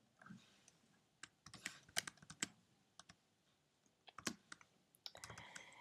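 Faint, irregular keystrokes on a computer keyboard, a few clicks at a time with short gaps between.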